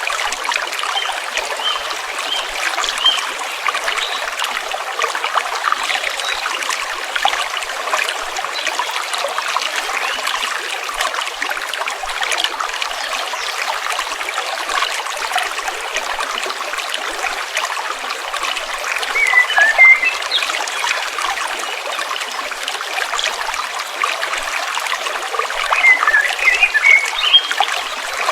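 A stream trickling and babbling steadily over stones. Short bursts of bird chirping come twice, about two-thirds of the way through and again near the end.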